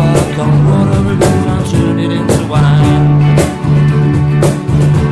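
A band playing a song live: guitar and bass over drums, with a sharp drum hit about once a second.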